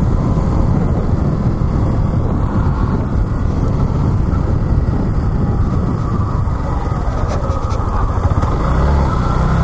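Yamaha XTZ 150 motorcycle on the move: its single-cylinder engine runs under a steady, dense rush of riding noise, growing a little stronger near the end.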